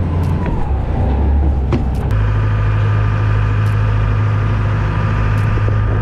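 Small fishing boat's engine running under way, with the rush of wind and water around it. About two seconds in, the engine note steps up and settles into a steady drone.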